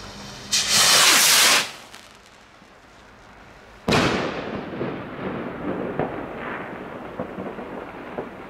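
A firework lifts off with a loud hiss lasting about a second, then bursts with a sharp bang about four seconds in that echoes away, followed by a few small scattered pops as the stars spread.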